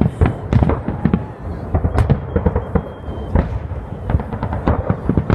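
Aerial fireworks shells bursting in a dense, continuous barrage of loud overlapping bangs, several each second.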